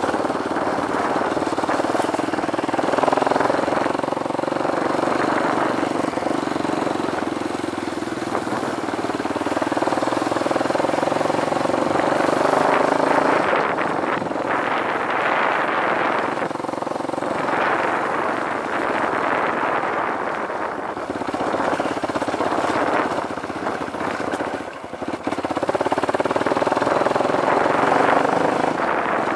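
Dirt bike engine running while riding, its pitch rising and falling with the throttle, with a brief drop in loudness about 25 seconds in as the rider eases off.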